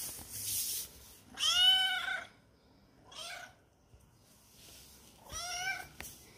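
Young tabby kitten meowing three times, drawn-out calls a couple of seconds apart. The first call is the loudest and the middle one is fainter.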